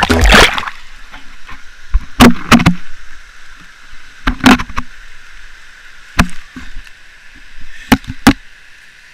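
Background music cuts off just after the start. Then a few sharp knocks, some single and some in pairs, sound over a steady hiss.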